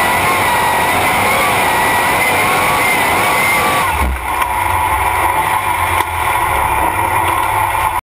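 Light modified pulling tractor's engine running at full throttle under load, its pitch wavering slightly. About four seconds in the throttle is shut and the engine drops abruptly to a low, uneven idle as the pull ends.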